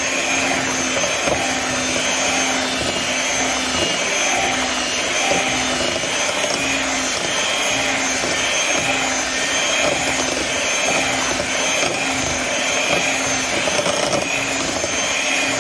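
Electric hand mixer running at a steady speed, its two beaters churning a thick cake batter as the flour is worked in.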